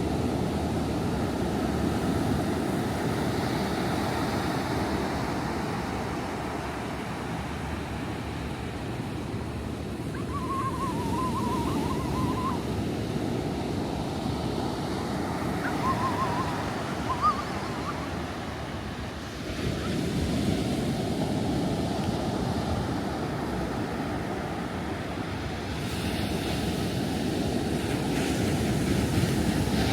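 Ocean surf washing onto a beach: a steady rush of breaking waves that swells and eases. One surge builds again about twenty seconds in.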